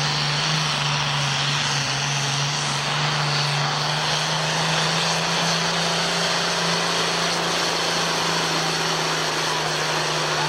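Engine of a 1969 John Deere pulling tractor at full throttle, dragging the weight sled down the pulling track. The engine note holds steady and loud.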